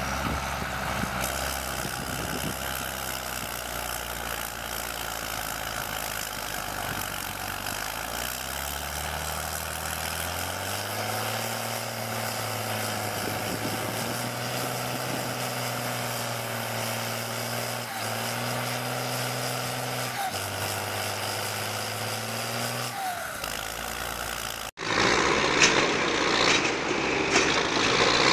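Tractor diesel engines working hard in a tug of war: a FIAT 1000 and a New Holland TM155. The engine note climbs over a few seconds about a third of the way in, then holds under load with two brief dips. Near the end it cuts sharply to louder, rougher engine noise from a Rakovica 65 and an IMT 558 pulling close by.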